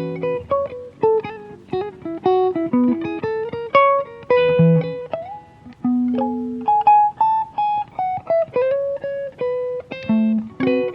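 Solo acoustic guitar improvising, picking single notes and short melodic phrases that each ring and fade, with a slide up to a higher note about five seconds in.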